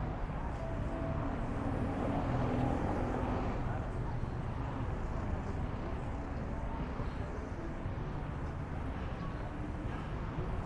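Steady street-traffic noise: motorbikes and cars going past on a busy road, with indistinct voices of passers-by.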